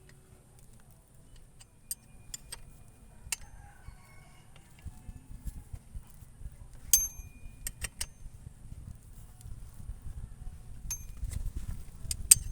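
A few scattered sharp clicks and clinks over a low rumble that grows louder toward the end.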